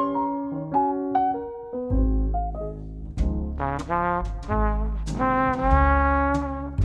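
Background music: a few piano-like notes, then about two seconds in a deep bass and a brass section take over. Regular drum hits come in from about three seconds on.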